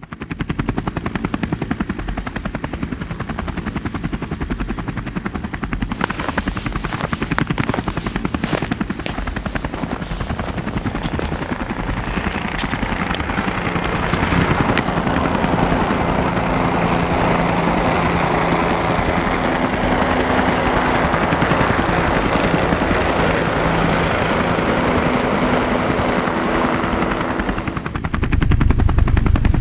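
Subaru WRX STi's turbocharged flat-four engine running with its boxer rumble, a steady pulsing throb under way. It climbs in pitch and level partway through and gets louder and deeper near the end.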